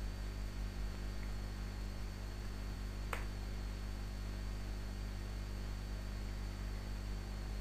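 Steady electrical mains hum with a faint high whine and hiss, and one sharp click about three seconds in.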